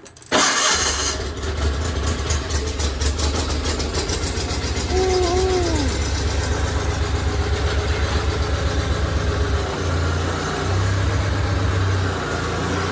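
Gravely 817 garden tractor engine started on choke: it catches within about a second and settles into a steady, fast-pulsing run. Its speed shifts up and down about ten seconds in.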